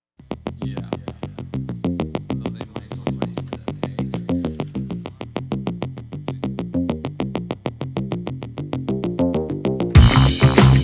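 Background music: a synthesizer playing quick, evenly spaced notes, about seven a second, with a fuller, louder beat coming in near the end.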